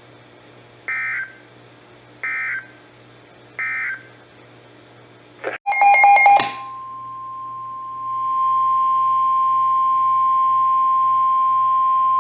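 Emergency Alert System signalling: three short data bursts about a second and a half apart, then a brief loud burst of mixed tones. About six seconds in, a long steady single-pitch alert tone begins, the NOAA Weather Radio warning alarm, and it holds for about six seconds.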